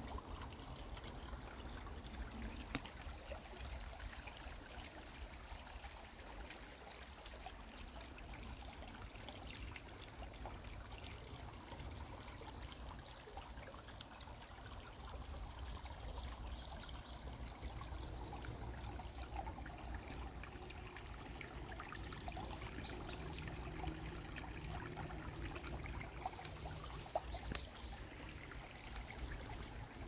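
Shallow creek water trickling and babbling over rocks, soft and steady.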